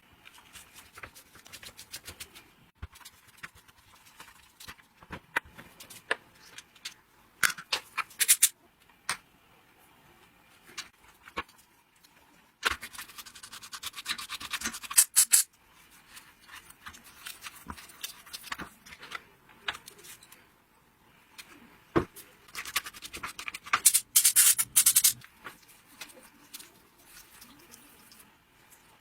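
Hand tools working on chainsaw parts: scattered sharp metal clicks and taps, with two longer stretches of scraping or brushing, about thirteen seconds in and again about twenty-three seconds in.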